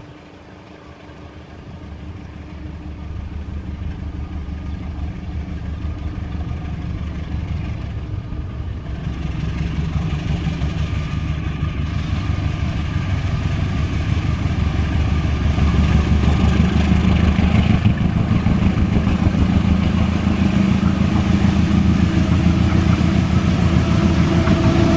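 Diesel-electric locomotive engine running under power as the train approaches, a steady deep drone that grows louder over the whole stretch.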